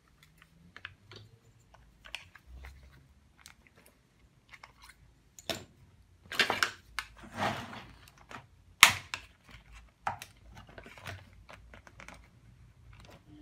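Hard plastic parts clicking, rattling and clattering as a vacuum cleaner's cable-rewind reel is handled and pried apart, with a run of louder knocks between about six and nine seconds in.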